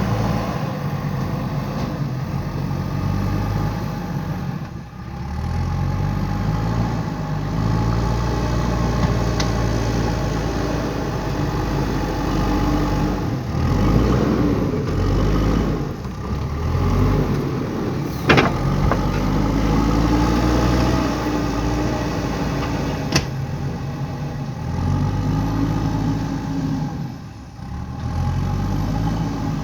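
JCB 3DX backhoe loader's diesel engine running as the machine works, its pitch rising and falling again and again as it revs up and settles. Two sharp clicks stand out, about 18 and 23 seconds in.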